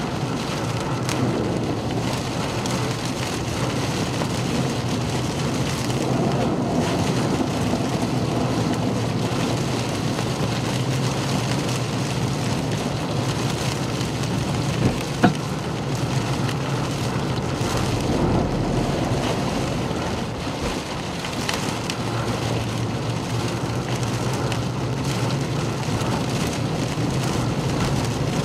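Wind-driven rain beating on a moving vehicle, with a steady hum of road and engine noise. A single sharp knock sounds about fifteen seconds in.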